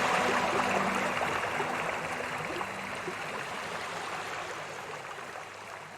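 Rushing water of a waterfall with soft sustained music tones under it, all fading out steadily.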